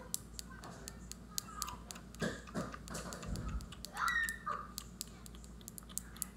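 Irregular small sharp clicks and taps, with a brief faint squeal about four seconds in.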